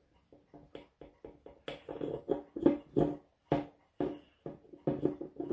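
A thumb rubbing back and forth over crayon wax on the chipped edge of a stone clock case, working the colour into the chips. It makes about four short rubbing strokes a second, which grow louder after about a second and a half.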